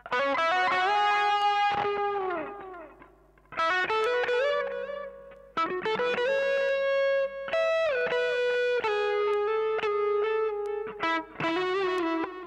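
Electric guitar played through a Mooer GE100 multi-effects processor on its 'Fusion OD' overdrive preset: short lead phrases of picked, sustained notes with string bends, with a brief gap after about three seconds.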